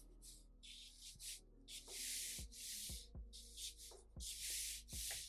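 Felt-tip marker drawn across paper in a quick series of about nine short strokes, each a brief scratchy hiss.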